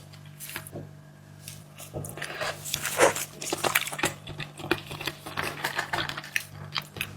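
Close-up eating of marinated seafood: irregular wet clicks, smacks and chewing, sparse for the first couple of seconds and then busy and continuous.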